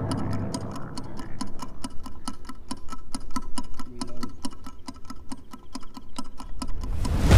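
Fast, evenly spaced mechanical ticking, several ticks a second, like a clock or timer. A low rumble fades out as it begins and cuts back in loudly at the very end.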